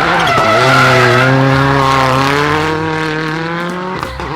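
Racing car engine sound effect, a loud engine note whose pitch dips shortly after the start and then holds steady for several seconds.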